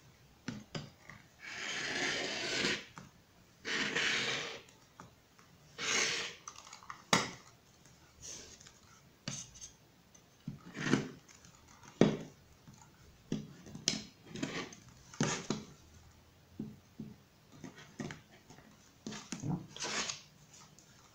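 Rotary cutter blade rolling through layers of cotton patchwork on a cutting mat in several short strokes, two longer ones early on, with clicks and knocks from the acrylic ruler and the cutter being handled between cuts.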